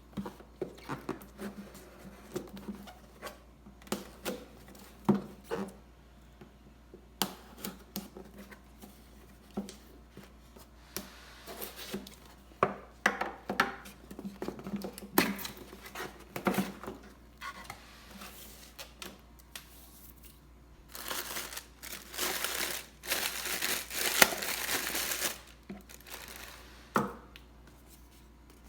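Packaging being handled during an unboxing: scattered taps and knocks of a box and its contents, then about four seconds of continuous crinkling and tearing of wrapping, with one last knock near the end.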